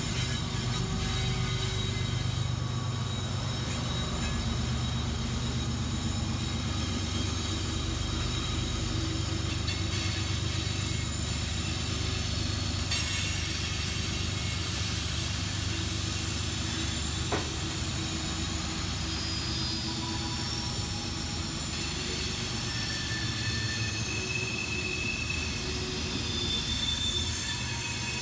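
Loaded coal train rolling past close by on a curve. A GE diesel locomotive goes by first, then a string of loaded coal hoppers. It makes a steady low rumble, with high wheel squeal held over it throughout.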